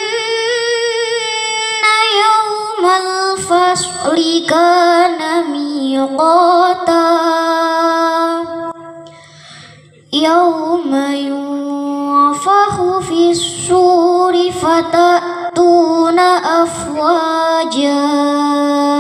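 A young girl recites the Quran from memory in a melodic chant into a microphone, with long held notes and gliding ornaments. She stops for a breath about eight and a half seconds in and resumes a second or so later.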